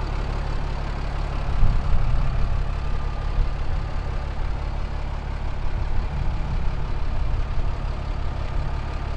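Diesel engine of a Ram 3500-based off-road wrecker idling steadily with a low rumble.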